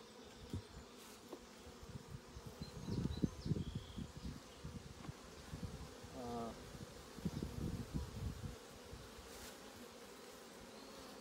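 Honeybees buzzing around an open hive, a steady hum. Clusters of low bumps and knocks come about three seconds in and again around seven to eight seconds.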